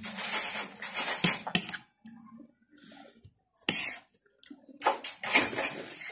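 Eating noises close to the microphone: noisy slurps of noodles and soup in several bursts, the loudest about a second in, with a short one in the middle and another run near the end.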